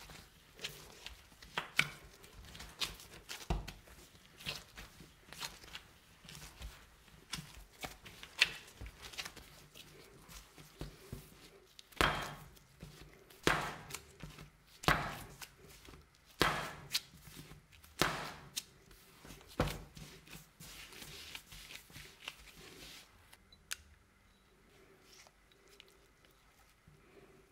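Kitchen handling sounds from bread making: scattered clicks and knocks, then a run of six heavy thumps about a second and a half apart, dying down to faint handling near the end.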